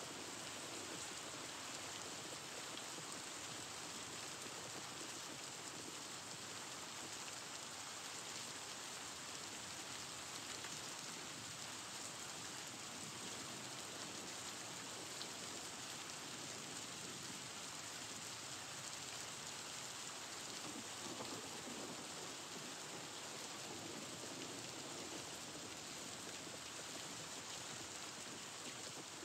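A steady, even rain-like hiss with no distinct knocks or events standing out.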